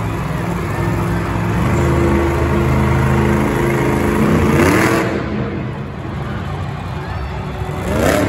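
Earthshaker monster truck's supercharged V8 engine running at high revs as the truck balances upright on two wheels. It revs up sharply twice, about halfway through and again near the end, over arena crowd noise.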